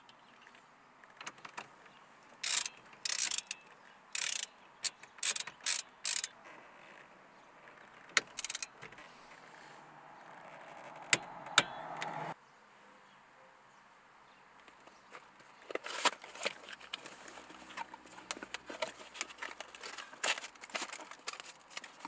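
Socket ratchet clicking in short bursts of strokes, tightening the steering-column nut that holds a Works Bell short hub. Lighter, scattered clicks follow in the second half.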